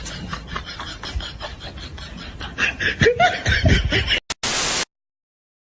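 A person snickering and then laughing out loud, louder after about two and a half seconds. The laughter ends in a brief burst of hiss, and then the sound cuts out.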